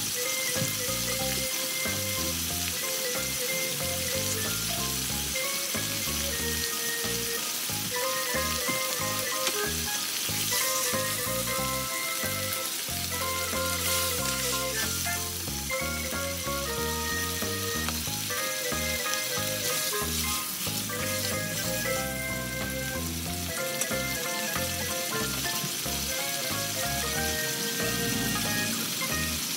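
Sauce and vegetables sizzling and bubbling in a hot wok, stirred with a spatula around the middle. Background music with a melody and bass plays throughout.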